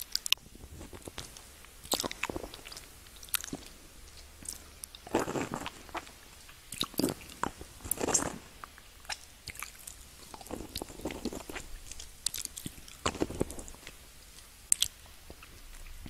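Close-miked mouth sounds of a person biting and chewing a hard candy lollipop: sharp cracks and clicks throughout, with longer crunching spells about 5, 7, 8 and 13 seconds in.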